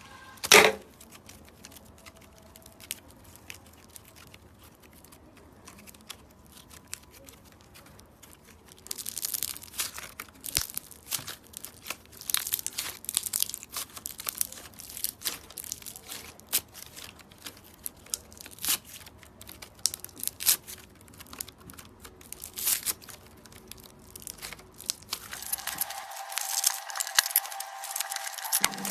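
Slime being stretched and pressed, its trapped air bubbles popping in crackling clicks: sparse at first, then a dense, rapid run from about nine seconds in.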